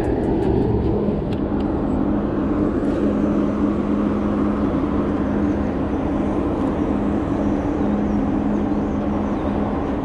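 Boat motor running steadily, a constant low hum under a dense rushing noise.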